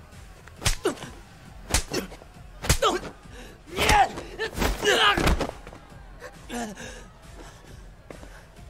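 Film fight sound effects: a quick series of sharp punch and strike impacts in the first four seconds. They are mixed with men's grunts and yells of effort and pain, with a last shorter grunt near the end.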